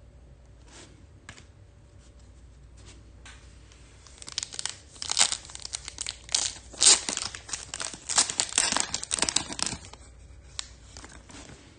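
Foil wrapper of a Topps Chrome Formula 1 trading-card pack being torn open by hand: a few faint clicks, then about six seconds of crackling tearing and crinkling from about four seconds in, dying away near the end.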